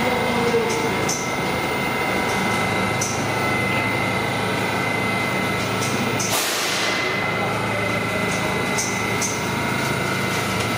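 R68 subway car standing at the platform with its doors open, its equipment running with a steady hum and a thin high whine. About six seconds in, a short hiss of air.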